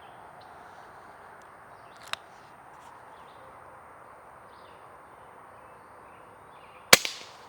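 A single air rifle shot about seven seconds in, a sharp crack followed a split second later by a smaller knock. A faint click comes about two seconds in, over a steady outdoor background of insects and birds.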